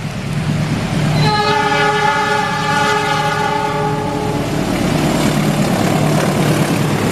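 CC 206 diesel-electric locomotive climbing a grade at close range, its diesel engine running with a steady low drone, and its horn giving one long blast from about a second in that lasts about three seconds.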